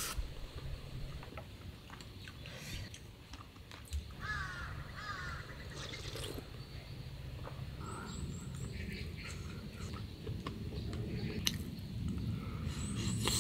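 A bird gives two hoarse calls in quick succession about four seconds in. Around them are scattered utensil clicks and eating noises over a low, steady rumble.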